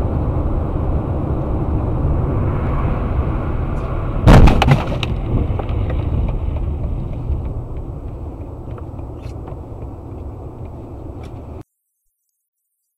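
Dashcam recording inside a car on a snowy highway: a steady rumble of road and wind noise, with a sudden loud bang and short rattle about four seconds in. The rumble slowly fades, then cuts off abruptly near the end.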